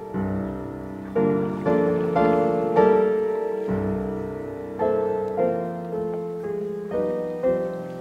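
Background piano music: a slow melody of struck notes that start sharply and ring away, one after another.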